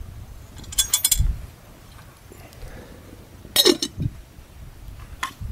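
Enamelled metal lid clinking against a small enamel pot as it is handled and set on: a quick run of clinks about a second in, another past halfway, and a single click near the end.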